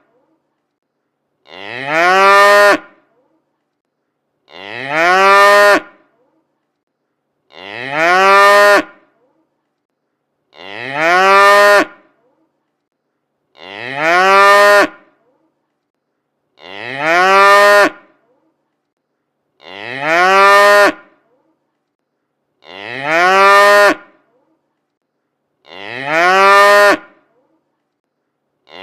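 A cow mooing: the same short call, rising slightly in pitch and then holding, repeats identically about every three seconds, nine times, with total silence between calls.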